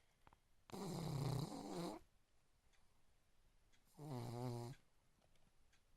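A sleeping pet snoring: two snores, the first lasting over a second and the second, about four seconds in, shorter.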